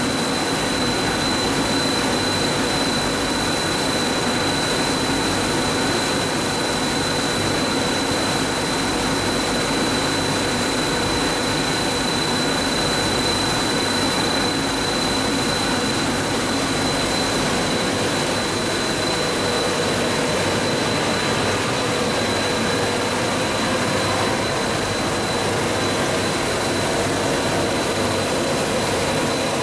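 Coil car mat production line machinery running: a steady, unchanging din of motors and blower fans with a constant high whine.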